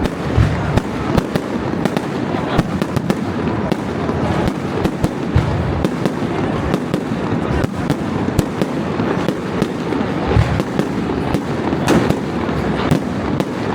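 Fireworks display going off without pause: a dense run of overlapping bangs and crackles, with heavier booms every few seconds.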